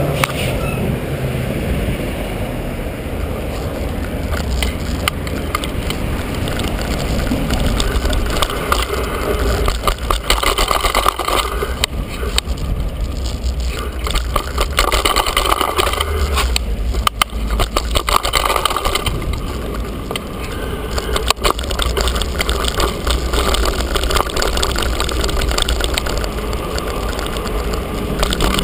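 Wind buffeting a bicycle-mounted GoPro during the ride, over a steady low rumble of tyres on pavement. The bike and camera rattle, with bursts of sharp knocks partway through as the bike goes down concrete steps.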